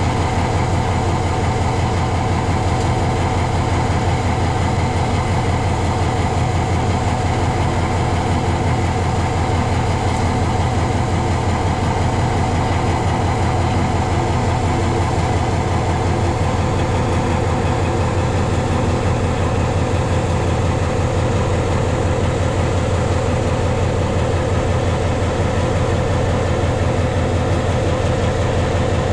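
EMD SW1500 switcher locomotive's 12-cylinder diesel engine running with a steady low throb at low throttle, unchanging throughout, as the locomotive and its railcar pass slowly by.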